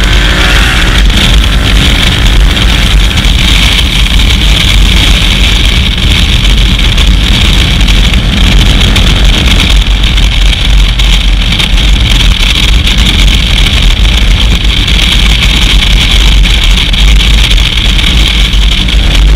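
Loud, distorted wind buffeting and road noise on a motorcycle-mounted GoPro at riding speed, mixed with the KTM 990 Adventure's V-twin engine running.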